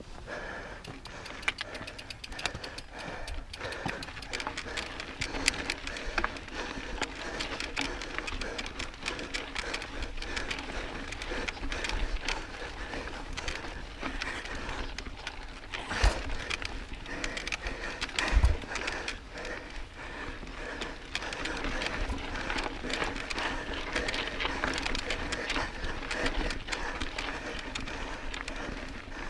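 Mountain bike rattling over rocky trail: a dense, continuous run of clicks and knocks from tyres, chain and frame, with a heavier thump about 16 seconds in and another about 18 seconds in.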